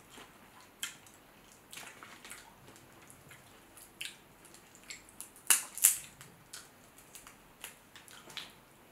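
Sauce-coated crawfish and shrimp shells being cracked and peeled by hand: scattered wet clicks and crackles, with two louder snaps a little past halfway.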